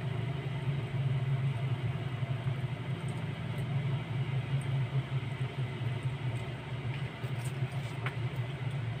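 A steady low mechanical hum, like a motor or engine running, with a few faint ticks.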